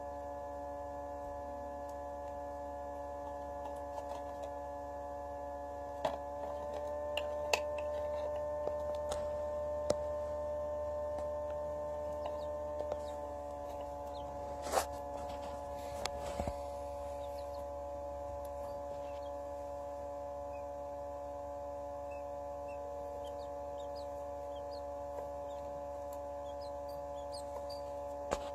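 Steady electric hum of a small egg incubator's fan motor, several tones together, growing a little louder for several seconds about six seconds in. Occasional sharp clicks, and a few faint high chirps near the end, likely from the newly hatched quail chick.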